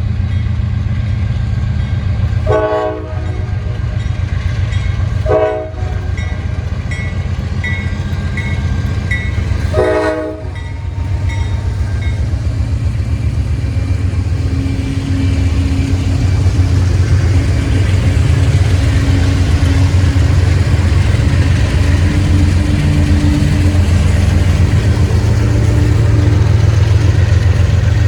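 Diesel locomotives of a loaded freight train running with a heavy, steady engine drone that grows louder from about halfway through. Three short horn toots come at about 2.5, 5.5 and 10 seconds, and a bell dings about twice a second for several seconds in between.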